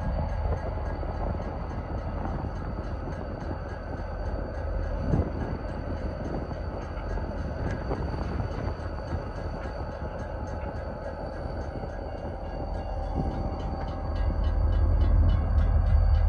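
Diesel locomotive running light, its engine giving a steady low rumble, with a single knock about five seconds in. The engine sound grows louder near the end.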